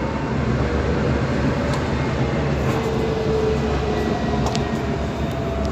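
Dubai Tram running at speed, heard from inside the passenger cabin: a steady low rumble with a faint hum around the middle.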